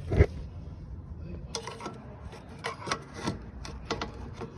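A heavy thump from the suspension of a 2003 Audi A6, followed by a series of sharper knocks and rubbing clunks. It is the suspension thumping noise that could come from worn control arm bushings.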